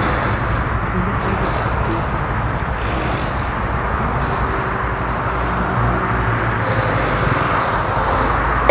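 Steady road traffic noise with vehicle engines running, heard from inside a car.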